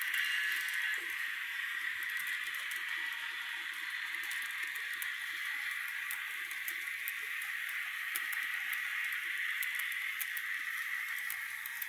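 HO scale model intermodal train cars rolling along the track, a steady rolling hiss of small wheels on rail with scattered light clicks.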